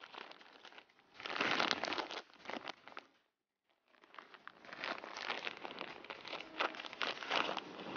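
Plastic wrapper of a Hilti RE 500 V3 adhesive cartridge crinkling and tearing as gloved hands pull it open. The sound cuts out for a moment about three seconds in, then the crinkling and rustling go on as the cartridge is handled.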